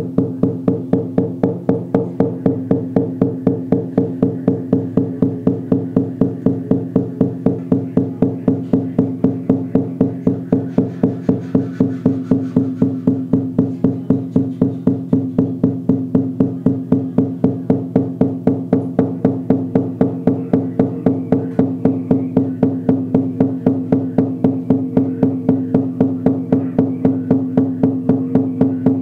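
Shamanic frame drum with a rawhide head, struck with a fur-wrapped beater in a steady, even beat, each stroke ringing on into the next.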